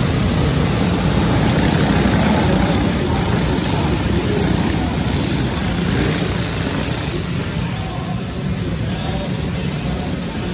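A pack of racing go-karts going by, their small engines running together in one dense drone inside a large hall. The sound is loudest in the first half and eases off after about six seconds as the field moves away down the track.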